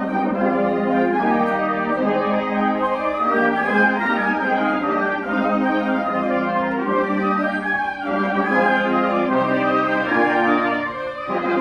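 Concert wind band playing a slow passage of held chords, with flutes, French horns and saxophones, the chords changing every second or two.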